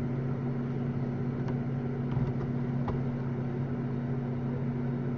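A steady low hum, a machine or electrical drone holding two constant pitches, with a few faint clicks from cards being handled.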